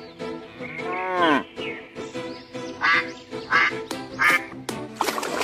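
Background music with a steady beat, over which a duck quacks three times, evenly about two-thirds of a second apart. About a second in there is a single longer call that rises and then falls in pitch.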